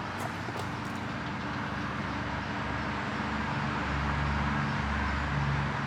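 A steady, pulsing engine-like drone that swells in the middle, over a continuous buzzing chorus of Brood X periodical cicadas, with a few light clicks in the first second.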